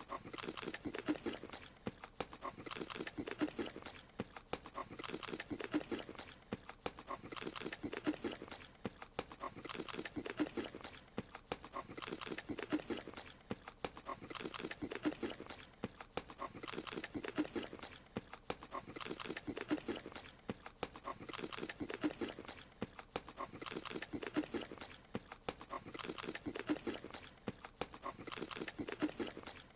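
Cartoon creature's eating sound effect looped: a short burst of quick, clicky eating noises, repeating about every two seconds.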